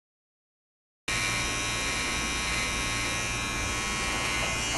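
Silence for about a second, then electric hair clippers buzzing steadily as they trim a design into short hair.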